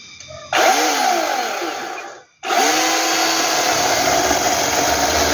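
Small battery-powered electric chainsaw switched on about half a second in and running at speed, released so that it cuts out just after two seconds, then started again and running steadily.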